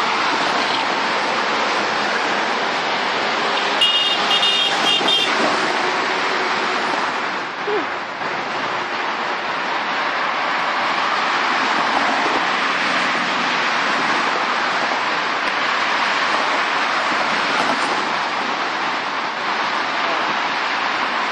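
Steady rushing of freeway traffic passing below an overpass, cars and trucks blending into one continuous roar of tyres and engines. About four seconds in, a short run of high beeps sounds over it.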